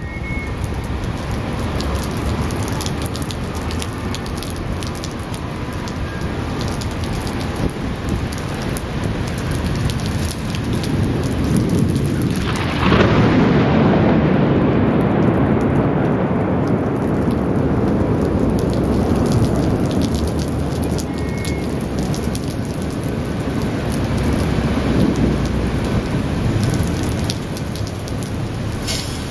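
Steady rain, and about halfway through a clap of thunder: a sudden sharp crack, then a long low rumble that rolls on and swells again near the end, echoing among surrounding high-rise buildings.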